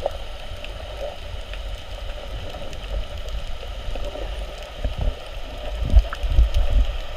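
Muffled underwater sound picked up by a camera held in the sea over a coral reef: a steady low rumble of moving water with faint scattered clicks and crackles, turning into heavier low thumps and sloshing from about five seconds in.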